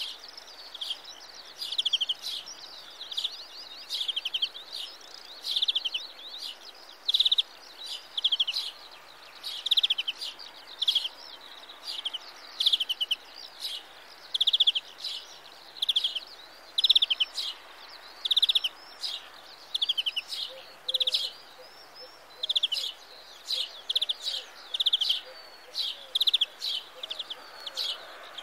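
European greenfinch singing: a long run of short, rapid trills, about one a second, over faint steady background noise.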